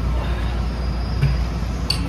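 Steady low rumble, with a soft thump partway through and a short sharp click near the end.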